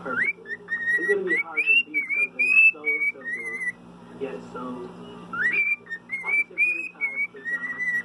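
Cockatiel whistling its song: a run of clear whistled notes, several sweeping sharply upward, broken by a pause of about a second and a half in the middle.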